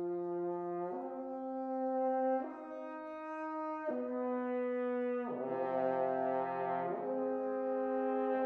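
Horn quartet of four French horns holding sustained chords in harmony, moving to a new chord about every one and a half seconds.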